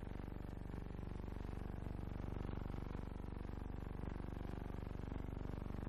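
A steady low drone or hum made of many evenly spaced tones, unchanging, with no speech.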